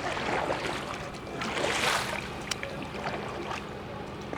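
Kayak paddle strokes in the water: two splashing swishes about a second and a half apart, with light drips and knocks between them.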